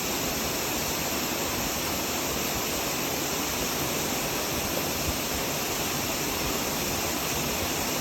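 Steady rushing of flowing water, an even roar without breaks or changes.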